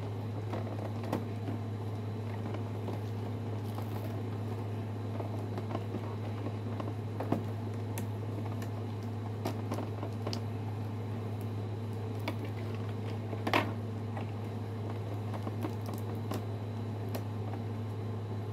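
Scattered light clicks and rustles of a boxed toy robot's packaging being handled while its twist ties are undone, a louder click about 7 seconds in and another about 13 seconds in, over a steady low hum.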